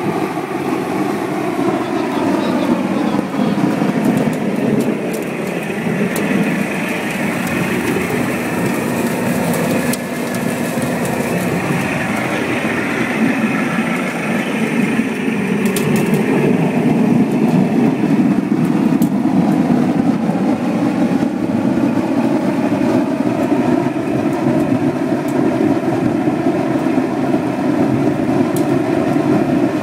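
Sawdust burner running at full fire: a loud, steady rush of its blower and flame, with a humming whine from the fan and feed motor that dips in pitch and comes back a few seconds in.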